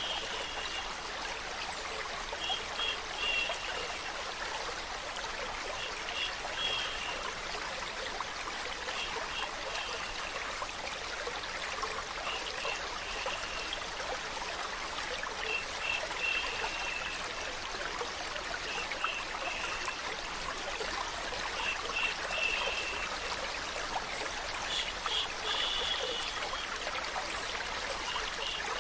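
Steady sound of running water like a stream, with a short, high trickling patter recurring about every three seconds.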